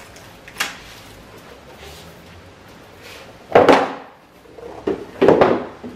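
Cardboard packaging box being handled and moved: a light click just over half a second in, then two louder rustling, sliding knocks of the box about three and a half and five seconds in.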